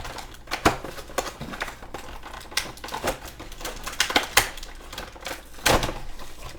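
Irregular clicks, taps and crinkles of an action figure's plastic and cardboard packaging being handled and opened, with a few sharper knocks.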